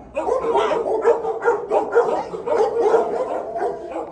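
Several shelter dogs in kennels barking and yipping rapidly over one another, without a break.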